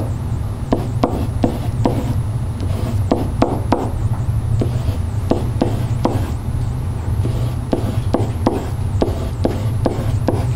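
A pen writing digits on a whiteboard: short taps and scrapes, a stroke every third to half second, with a few gaps. A steady low hum runs underneath.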